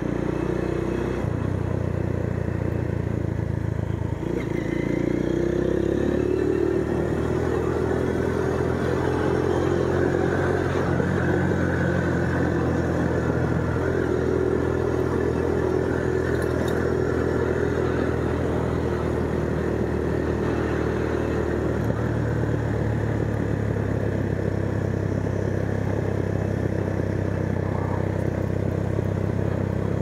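Motorcycle engine running steadily while being ridden, its note shifting in pitch a few times as the speed changes.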